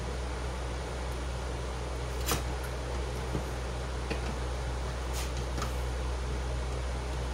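A few sharp metallic clicks from a small adjustable wrench working the bolts on a blower fan's bearing mount, the loudest about two seconds in and another about five seconds in, over a steady low hum.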